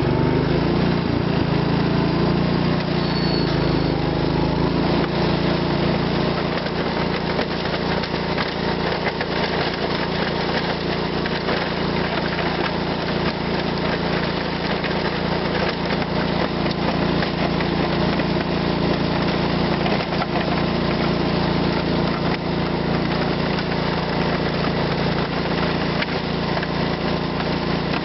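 Gravely 8123 garden tractor's engine running steadily under load while pushing snow with a front blade in high range third gear. The engine note rises over the first few seconds, then holds.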